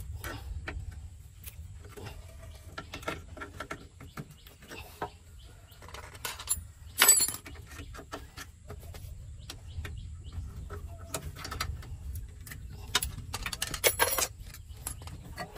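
Scattered metallic clinks and knocks of hand tools on metal parts during a clutch repair, over a low steady rumble. A sharp ringing clank comes about seven seconds in, and a quick run of clinks comes near the end.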